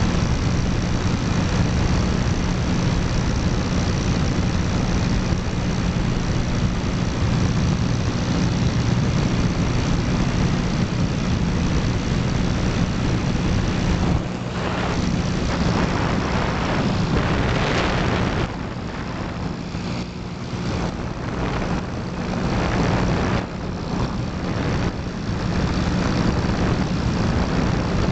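Steady drone of a light high-wing aircraft's propeller engine heard from inside the cabin, under a constant rushing noise. In the second half the rushing swells and dips unevenly.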